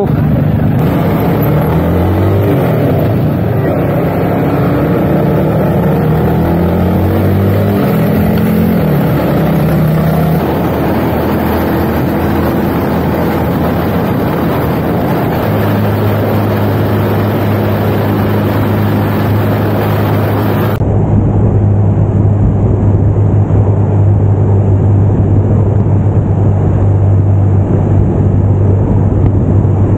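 Motorcycle engine running on the move, under a rush of wind and road noise. Its note steps up and down over the first ten seconds as the revs change, then holds steady. About two-thirds of the way through, the sound changes abruptly: the high hiss drops away and the engine note gets louder.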